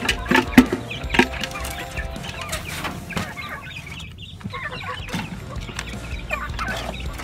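Domestic chickens clucking in a coop, a run of short calls throughout, with a few sharp knocks in the first second or so.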